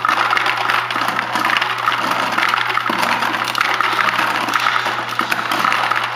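A chimpanzee making noise with its mouth pressed to the opening of a plastic bottle: a continuous rushing sound full of small crackles, with a steady low hum underneath.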